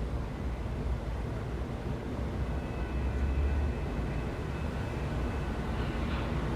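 City street traffic: a steady low rumble of passing vehicles that swells briefly around the middle. A faint high whine joins about halfway through.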